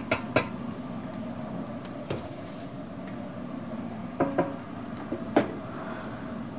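Steady hum of a restaurant kitchen's wok range and exhaust fan, with several sharp clanks of metal utensils and pans against the wok and counter, the loudest about five seconds in.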